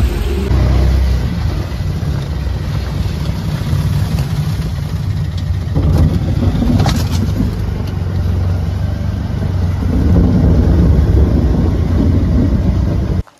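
Auto-rickshaw engine running loudly, heard from inside the cab while it drives, with a short knock about seven seconds in. The sound cuts off abruptly just before the end.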